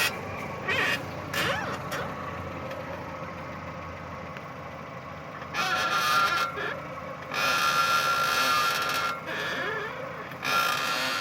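Chevrolet Cruze front wheel area creaking and squeaking as the steering wheel is turned, in several drawn-out creaks a second or so long with quieter stretches between.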